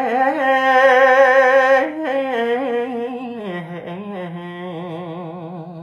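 A man chanting Khmer smot, unaccompanied. He holds long notes with a wide, wavering vibrato, then steps down to a lower, softer held note about three seconds in.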